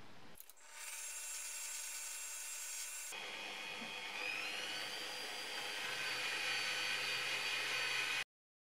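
Bosch bench drill press spinning a wire wheel brush with a steady high whine. After about 4 s a small metal lamp part is pressed against the spinning wire and the sound grows louder and harsher, with a rising whine. It cuts off abruptly near the end.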